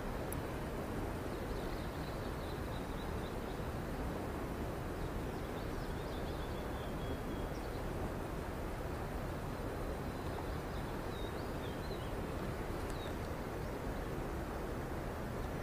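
Steady outdoor background hiss with faint, brief bird chirps a few times.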